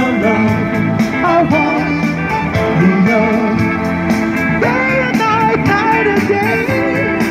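A recorded song playing: a band with a lead singer's voice over it.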